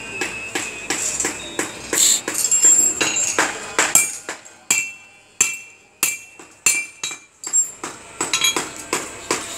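Hammer blows on the steel bars of a wrought-iron gate: irregular ringing metal strikes, roughly two a second.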